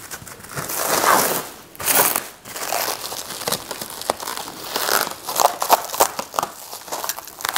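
Clear plastic stretch wrap crinkling and crackling as it is pulled and crumpled by hand, in irregular rustling handfuls.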